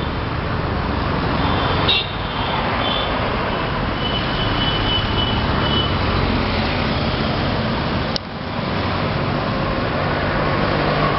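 Steady city road traffic noise from motorbikes, auto-rickshaws and cars passing, with a few faint high tones early on and a sharp click about eight seconds in.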